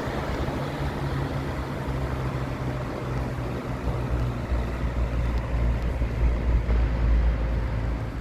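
A Montvale 16-inch box fan (a rebadged Air King) running, its universal electric motor and blades giving a steady rush of air over a low hum. The low end grows louder in the second half.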